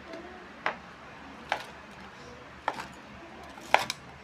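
Kitchen knife slicing through a crispy breaded pork cutlet (tonkatsu) on a clear hard board: several sharp crunching taps, roughly one a second, as the blade cuts the crust and hits the board.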